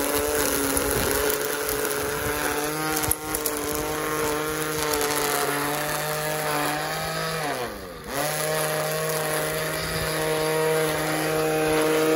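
Ferrex cordless battery string trimmer running at a steady whine as its plastic line cuts grass. About seven and a half seconds in, the motor winds down and at once spins back up to speed.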